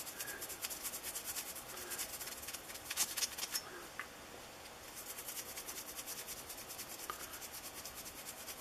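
Paper towel wet with isopropyl alcohol rubbed quickly back and forth over a soldered brass part, a light scratchy rubbing that wipes off the flux. The rubbing pauses briefly about halfway through, with a few small knocks just before the pause.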